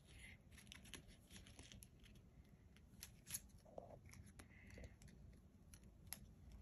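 Faint clicks and rustles of small paper and plastic pieces being handled and peeled apart by a child's fingers, with a few sharper ticks a little past the middle and near the end.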